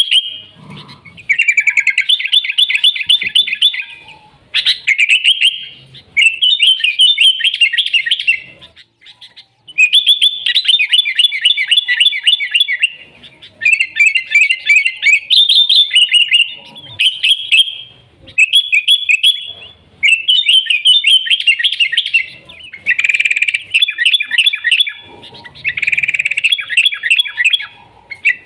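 Sooty-headed bulbul (kutilang) singing in full voice: loud bursts of rapid, chirping phrases, each lasting one to three seconds, repeated with short pauses between them.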